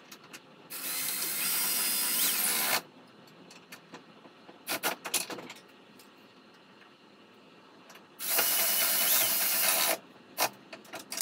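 Milwaukee Fuel 3/8-inch cordless ratchet running twice, about two seconds each time, driving down the 14 mm bolts of a brake cooling guide. Short metal clicks and clinks of the socket and tool come between the two runs.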